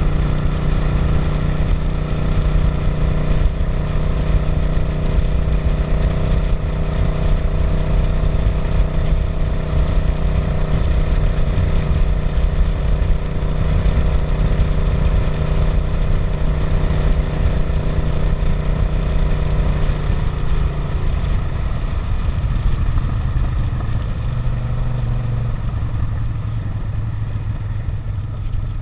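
Suzuki SV650's V-twin engine running at steady revs, then easing off about two-thirds of the way through and settling at lower revs as the bike slows.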